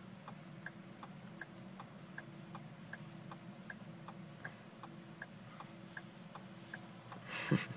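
A car's turn-signal flasher ticking steadily inside the cabin, about two and a half ticks a second, over a low steady hum.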